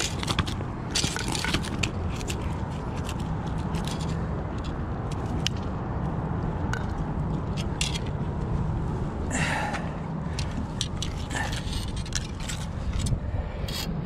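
Scattered short scrapes and clicks on a concrete ledge at irregular intervals, with a longer scrape about nine and a half seconds in, over a steady low rumble.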